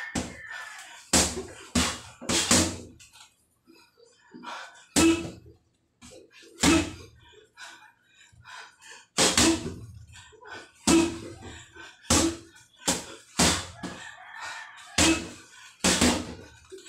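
Boxing gloves striking a hanging heavy punching bag, landing in irregular combinations of two or three punches with short pauses between them.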